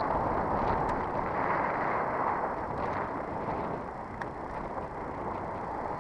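Steady rushing wind and road noise from a bicycle rolling along asphalt, wind on the camera microphone, easing off slightly about two-thirds of the way through.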